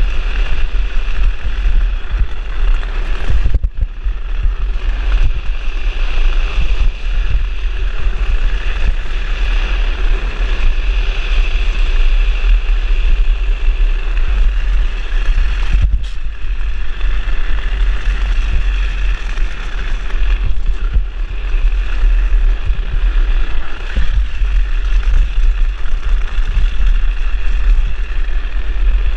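Wind buffeting the microphone of a fast-moving drift trike, over the steady rolling and sliding of its wheels on asphalt during a downhill run. The noise briefly dips twice, about 4 and 16 seconds in.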